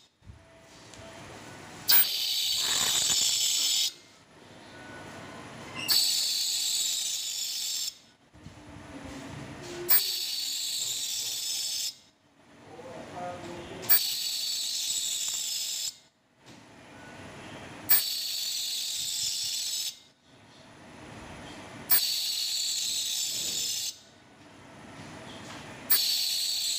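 Scientz JY92-IIN ultrasonic probe homogenizer sonicating liquid in pulsed mode (2 s on, 2 s off at 60% power): a high-pitched hiss of cavitation lasting about two seconds, then about two seconds of quiet, repeating seven times. Each burst starts with a click.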